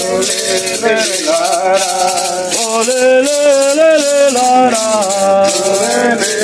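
Voices singing an indigenous ritual chant with a long-held, wavering melody, accompanied by maracas shaken in a steady rhythm.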